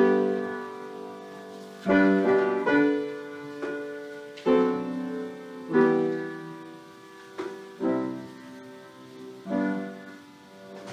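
Solo piano playing a slow, quiet piece: sustained chords struck about every one and a half to two seconds, each left to ring and fade before the next.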